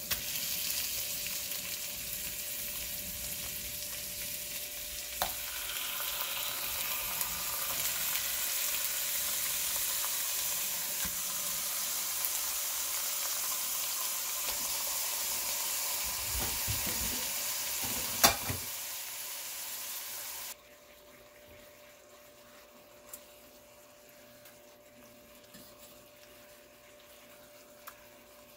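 Chicken thighs sizzling as they sear in melted butter in a Lodge cast-iron Dutch oven, a steady even hiss with one sharp clack about two-thirds of the way through. A couple of seconds later the sizzle cuts off suddenly, leaving a quiet stretch with a few faint clicks.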